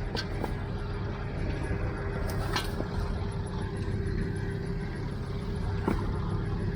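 Farmall 350 tractor engine idling steadily, with a few light knocks over it.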